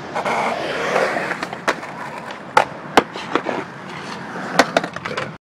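Skateboard wheels rolling on concrete, with several sharp clacks of the board striking the ground, the loudest about three seconds in. The sound cuts off suddenly just before the end.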